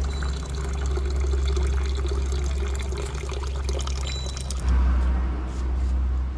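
Engine coolant pouring out of a removed car radiator into a plastic bucket, splashing steadily, over a steady low hum. The radiator is being drained because it leaks.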